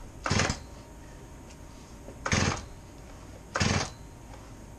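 Stihl chainsaw's recoil starter pulled three times on full choke, each pull a short whirring rattle as the rope spins the engine over, a second or two apart. The engine turns over without catching, though it almost sounds like it is going to start.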